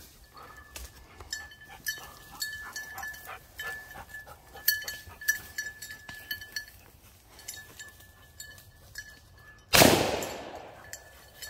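A single shotgun shot about ten seconds in, fired at a flushing woodcock, dying away over a second or so. Before it come light jingling, like the bird dog's bell, and small rustles and clicks of movement through brush.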